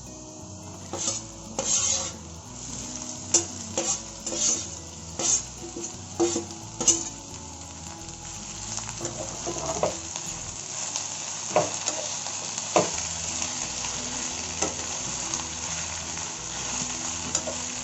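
Pounded gongura (sorrel leaf) and green chilli paste sizzling in hot oil with fried onions as a spoon stirs and scrapes it around the pan. The spoon clicks against the pan often in the first half, then the frying settles into a steadier sizzle with occasional knocks.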